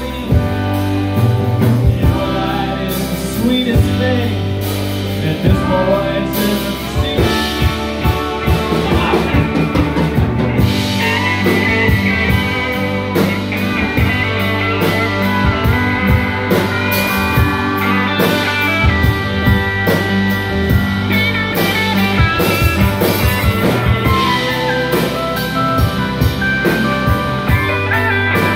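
Live rock band playing a song, with electric guitars, electric bass, drum kit and pedal steel guitar, the drums keeping a steady beat. Bright lead lines come in about halfway through.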